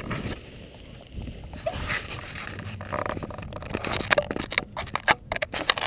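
Handling noise from a GoPro being held and fiddled with: rustling against a jacket and a run of sharp clicks and knocks, coming thicker in the second half.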